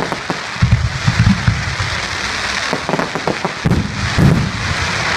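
Fireworks going off: a continuous dense crackling hiss, with deep booms about a second in and again near four seconds.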